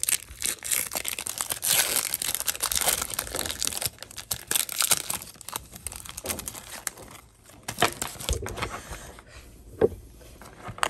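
Foil wrapper of a Pokémon trading-card booster pack crinkling and tearing as it is opened by hand. The dense crackle thins out after about seven seconds to a few scattered rustles and taps as the cards are taken out.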